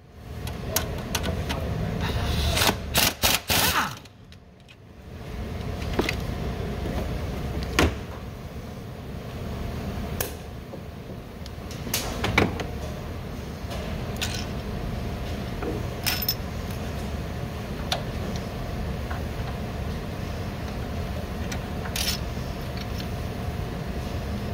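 A cordless power tool runs on a cam phaser bolt for a few seconds near the start. After that, tools and metal engine parts clink now and then over a steady low hum.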